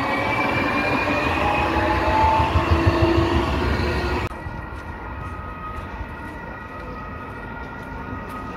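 Electric low-floor tram passing close by: its electric drive whines in several tones that glide slowly in pitch, over a low rumble. About four seconds in, the sound cuts abruptly to quieter street noise with a fainter steady tram hum.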